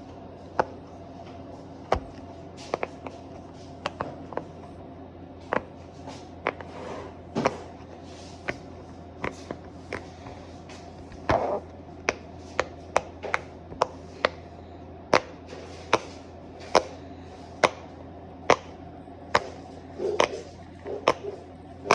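Silicone pop-it fidget toy being pressed bubble by bubble, giving a string of short, sharp pops at an uneven pace of roughly one or two a second.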